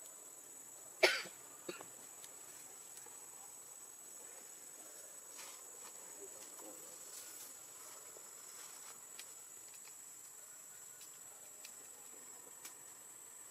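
Steady high-pitched drone of insects, with one short, sharp cough-like sound about a second in and a few faint clicks.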